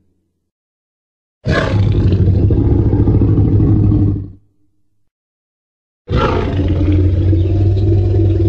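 Dinosaur roar sound effect for Greymon, styled after the Jurassic Park T. rex: two long roars, each about three seconds with a deep low rumble underneath. The first starts about a second and a half in; the second begins about six seconds in and runs on past the end.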